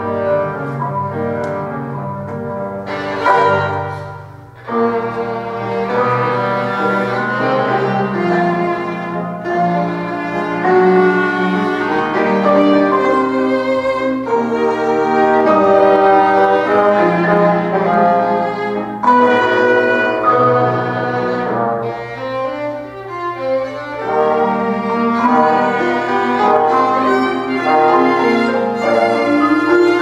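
Small chamber ensemble playing live: violin to the fore over upright piano, with trombone, clarinet and percussion. A sharp accent about three seconds in is followed by a brief drop in loudness before the music picks up again.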